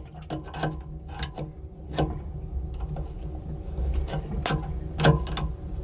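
Irregular metallic clicks and scrapes of a small wrench on the terminal nuts of an anchor windlass's electric motor as the blue and brown leads are loosened and swapped. A steady low hum runs underneath.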